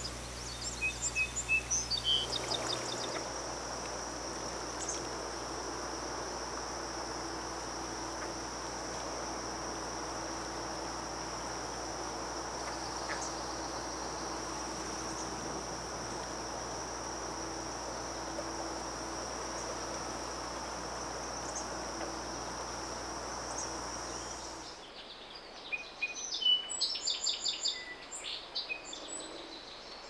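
Insects singing in one steady high trill, with a few short chirps near the start and a run of quick chirps over the last few seconds.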